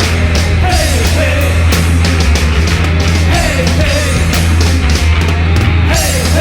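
Loud hard rock band music in an instrumental passage with no singing: heavy bass and drums with cymbal crashes, and short falling pitch slides that recur every second or so.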